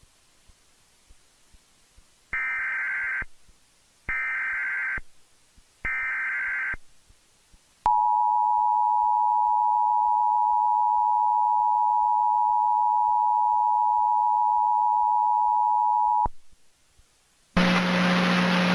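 Emergency Alert System SAME header: three identical short bursts of digital data tones, about a second each, sent three times as the coded alert header. They are followed by the EAS two-tone attention signal, a steady dual tone held about eight seconds that announces an emergency message. The tone cuts off suddenly, and near the end a burst of noise with a low hum begins.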